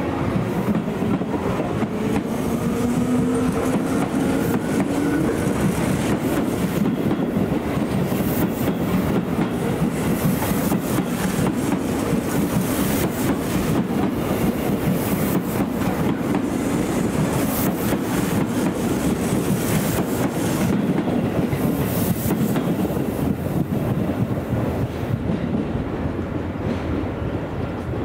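Electric commuter train running on the Tobu Tojo Line, its wheels clattering over the rail joints. A motor whine rises in pitch over the first few seconds.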